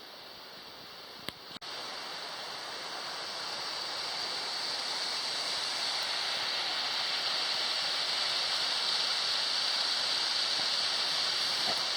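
Steady rush of falling water from a waterfall, growing louder over a few seconds after a short click and a brief break near the start.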